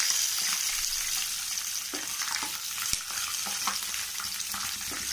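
Sliced onion and garlic cloves sizzling in hot oil in a kadai, with a wooden spatula stirring them in the second half.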